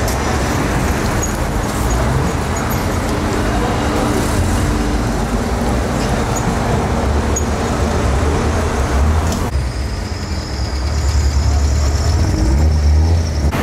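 Road traffic on a city street, with vehicle engines running and passing. About two-thirds of the way through, the hiss thins and a low engine rumble comes forward.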